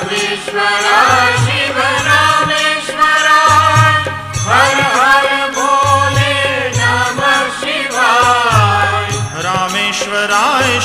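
Devotional Shiva chant set to music: a singing voice chanting a melody over a deep, recurring drum beat, with bells jingling.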